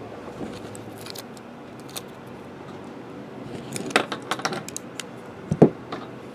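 Light metallic clicks and clinks as a small knife or box cutter is handled, then a single thump near the end as it is set down on the table.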